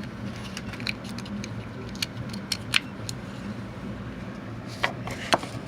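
Freshly cut Ford H72 PT key being slid into and worked in an ignition lock cylinder: light metallic clicks and scrapes, with a few sharper clicks about two seconds in and two more near the end.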